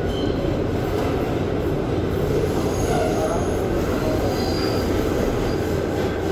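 Steady running rumble of a New York City Subway 7 train car (an R188) on the rails, heard from inside the car. A few faint, brief high-pitched wheel squeals come and go over it.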